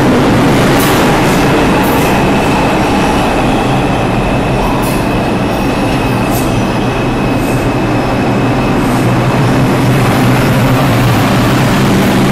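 New York City Subway R142 train arriving and running past along the platform: a loud, steady rumble of wheels on rail. A thin, high wheel squeal holds for several seconds in the first half, and a few sharp high clicks come through.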